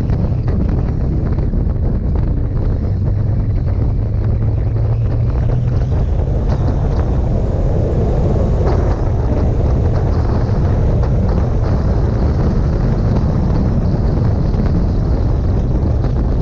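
Wind buffeting the microphone of a camera on a moving motorcycle, over the motorcycle's engine running at a steady cruise. The noise stays loud and even throughout.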